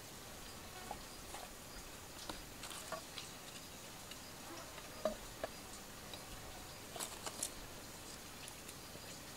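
Scattered light clicks and snaps of dry twigs and kindling being handled, broken and fed into a small wood fire, with the loudest snaps about five and seven seconds in.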